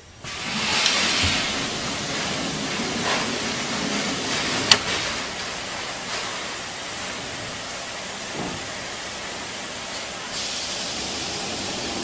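Large ultrasonic welding machine for cotton and non-woven material running with a steady hiss. There is a sharp click a little under five seconds in, and the hiss steps up louder and brighter about ten seconds in.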